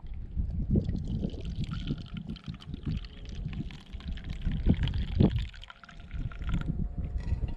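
Liquid poured from a stainless steel vacuum flask into a plastic cup, a steady stream lasting about six seconds that stops suddenly near the end, with wind buffeting the microphone throughout.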